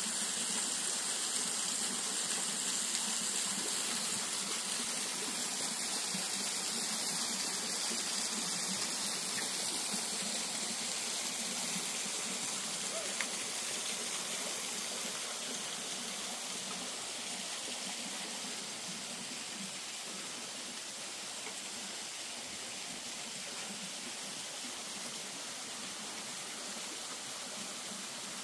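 Steady rushing hiss of a rocky gorge stream and small waterfall, easing off slightly through the second half.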